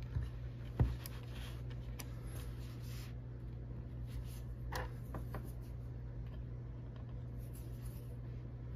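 Small plastic clicks and rubbing as an Apple IIgs keyboard's space bar is worked onto its stabilizer wire, with a sharp click about a second in and another near five seconds, over a low steady hum.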